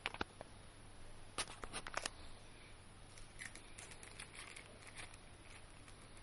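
Faint clicks and plastic handling noise from a small infrared remote control: a quick cluster of sharp clicks about a second and a half in, then softer scattered ticks as its buttons are pressed.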